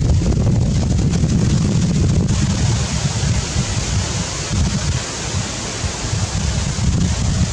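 Wind buffeting the microphone: a loud, uneven low rumble with a steady hiss above it, easing slightly midway.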